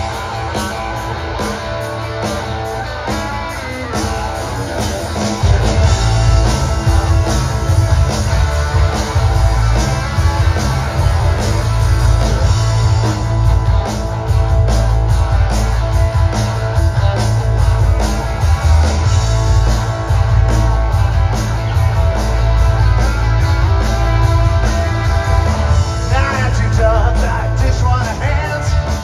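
Rock band playing live: electric guitars, bass and drums, with the low end coming in fuller and louder about five and a half seconds in.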